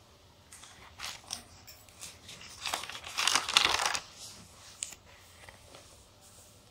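Paper rustling as notebook pages are turned, a run of crinkling bursts that is loudest about three to four seconds in.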